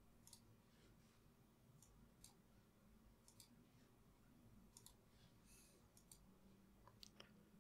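Near silence with faint, scattered computer mouse clicks, two of them close together near the end.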